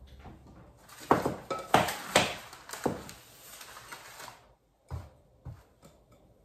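Kitchen handling noise: bowls and utensils knocked and set down on a stone countertop, a handful of sharp knocks followed by a few lighter taps near the end.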